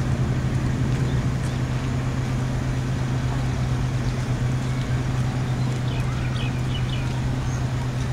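A steady low mechanical hum of running machinery, holding even throughout, with a few short high chirps about six and a half seconds in.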